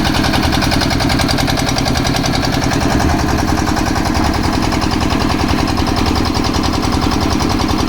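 Concrete mixer's engine running steadily at a constant speed, with a fast, even pulsing.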